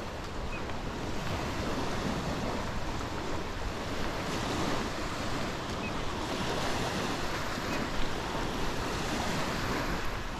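Steady wash of small lake waves breaking on a sandy beach, with wind noise on the microphone.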